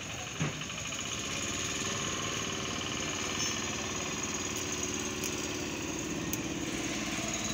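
A small engine running steadily with an even, rapid pulse, starting in about a second in. A single sharp click is heard about half a second in.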